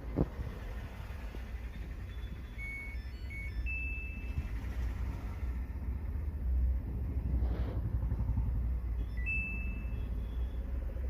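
Samsung top-load washing machine's control panel beeping: a few short high beeps, then a longer tone, with one more longer beep near the end, as on a board under test. A steady low rumble runs underneath.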